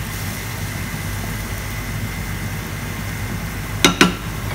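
Steady low rumble of a pot of chicken simmering on the stove, with two sharp knocks close together near the end as a wooden spatula strikes the pot.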